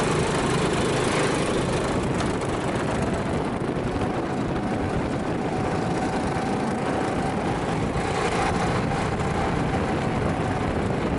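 Go-kart engine running steadily at speed, heard from the driver's seat: a steady drone under a dense rushing noise.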